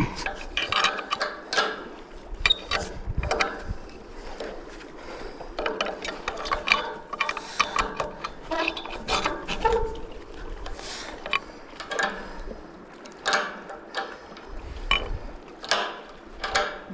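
Irregular metallic clicks, clanks and scrapes of a steel car jack handle hooked on a magnet-fishing magnet, levering at it to pop it off a bridge it is stuck to.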